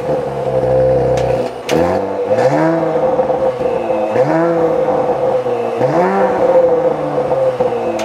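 2019 Audi RS5 Sportback's twin-turbo 2.9-litre V6, heard at the exhaust tips just after start-up. It holds a fast idle for the first second or so, then is revved in about four short throttle blips, each rising and falling in pitch.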